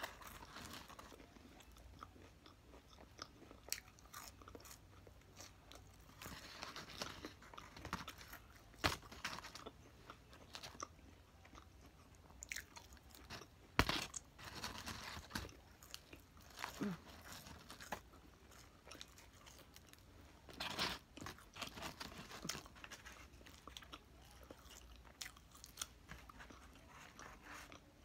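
A person chewing and biting fast food such as french fries close to the microphone, with scattered short crunches and mouth clicks. A sharp click about 14 seconds in is the loudest.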